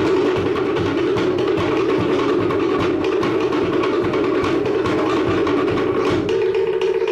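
Traditional Cook Islands drum ensemble playing a fast, driving rhythm of dense wooden strikes on slit-log drums (pate) for a drum dance.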